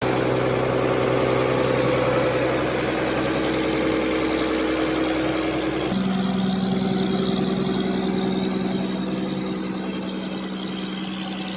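125 kVA Ashok Leyland turbocharged diesel generator set running steadily on load test. Its tone shifts abruptly about six seconds in.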